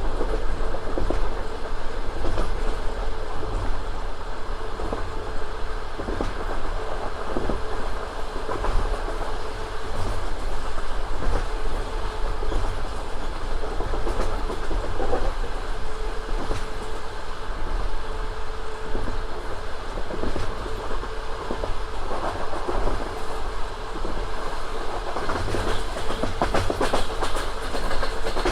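Passenger train running between stations: a steady rumble of the carriage with the wheels clattering over rail joints, and a faint steady hum, growing louder near the end.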